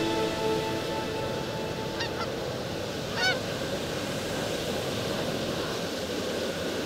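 Canada geese honking as a flock comes in over decoys: a couple of short honks about two seconds in and another cluster about three seconds in, over a steady background rush.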